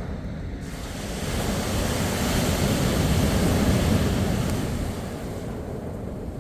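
Mediterranean waves breaking on the beach: the wash swells about a second in, peaks in the middle and eases off near the end, with some wind on the microphone.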